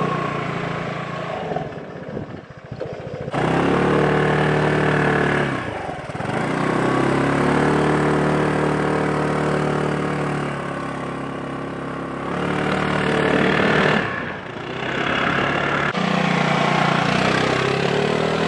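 Scooter engine running at steady revs under throttle, easing off briefly about two seconds in, again near six seconds and near fourteen seconds, then picking up again each time.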